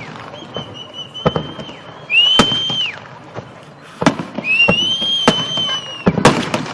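Fireworks display: three high whistles from whistling shells, each lasting about a second and cutting off, with sharp bangs of bursting shells between them and a quick cluster of bangs near the end.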